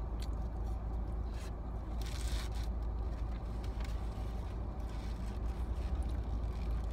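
Steady low rumble of a car running, heard from inside the cabin, with a brief scraping rustle about two seconds in.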